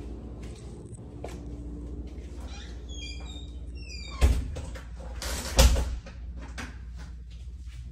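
Interior door being handled while someone walks through the doorway: a short run of squeaky chirps, then two loud knocks about a second and a half apart, over a steady low hum.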